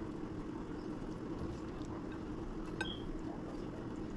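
Steady low hum of a quiet kitchen, with a faint click or two from a spice shaker held over a fish on a plate, a little under three seconds in.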